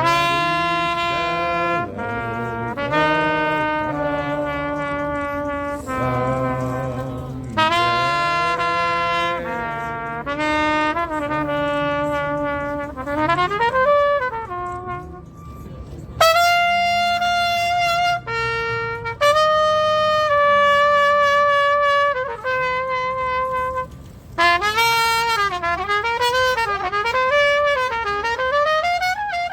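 Trumpet playing a slow melody of long held notes, with a rising glide about halfway through and a quick, wavering run near the end.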